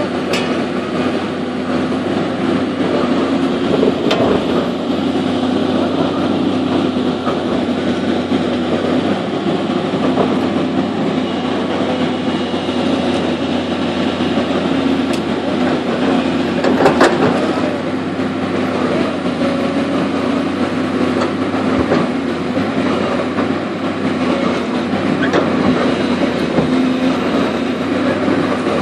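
Heavy machinery running steadily: a continuous engine rumble with a steady hum, and a few sharp clanks and knocks, the loudest about two-thirds of the way through.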